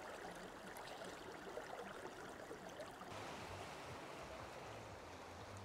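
Faint, steady trickle of a shallow stream running over sand and rocks. About three seconds in, the sound changes to a duller, lower rumble of open-air ambience.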